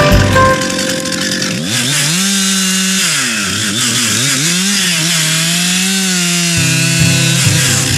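Stihl MS 261 two-stroke chainsaw revving up about two seconds in, then cutting through a log. Its pitch dips and recovers several times as the chain loads up in the wood, then steadies near the end of the cut.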